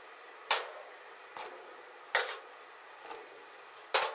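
Handfuls of chopped vegetables (leek, onion, carrot) dropped into a pot of simmering stock, each landing with a short splash; five drops about a second apart, two of them louder.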